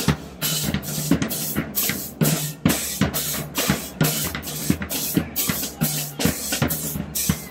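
Street drumline of snare drums, bass drums and hand cymbals playing a fast, steady beat of about four strikes a second.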